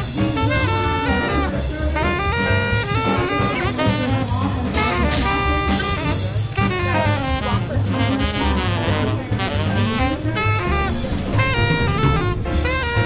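Background jazz music with saxophone and a drum kit.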